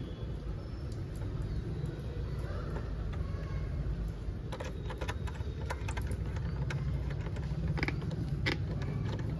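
Small clicks and taps of a speaker wire being pushed into the spring-clip terminal on a bass tube subwoofer enclosure, scattered through the second half over a steady low rumble.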